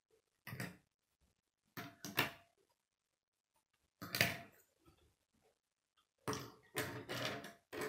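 Plastic K'nex pieces being handled and set down on a wooden tabletop: short bursts of clacking, four or five times, the busiest cluster near the end.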